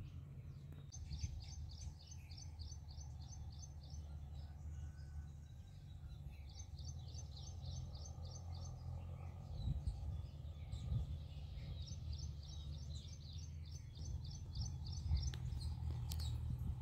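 A bird gives rapid runs of high, evenly repeated chirps, about six a second, in three bouts: alarm calls at a rat snake hidden in the brush. A steady low rumble runs underneath.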